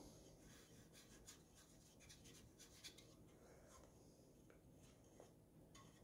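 Near silence with the faint scratchy strokes of a paintbrush on a small wooden birdhouse, busiest in the first half and sparser after.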